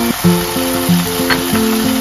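Background music: a light melody of short notes that change several times a second.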